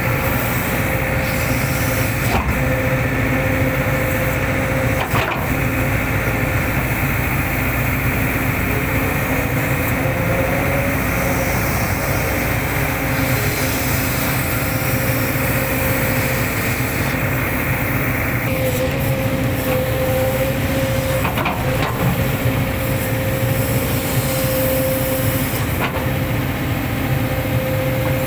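Hitachi excavator running steadily under work, with a steady whine over the engine and a few sharp knocks as it digs.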